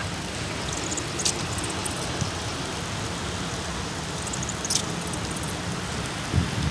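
Steady hiss of rain and wet pavement, with a couple of faint brief ticks and a low thump near the end.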